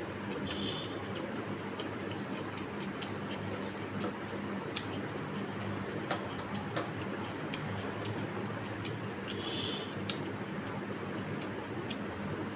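Close-miked hand-eating sounds: irregular small clicks and smacks from chewing and from fingers mixing rice and curry on a brass plate, over a steady low hum.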